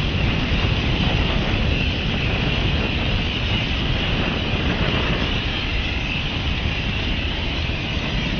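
Steady rushing noise with a low rumble, like wind buffeting the microphone.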